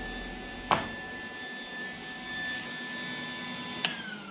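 Lincoln Electric 180 MIG welder's cooling fan running with a steady whine, a sharp click under a second in, then the power switch clicked off near the end and the fan whine sliding down as it spins down.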